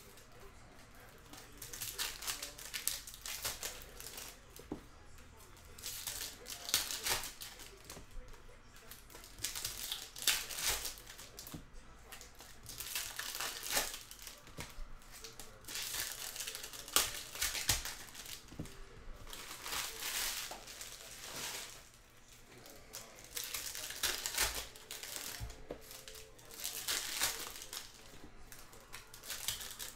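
Baseball card pack wrappers crinkling and tearing as packs are opened by hand, in irregular bursts.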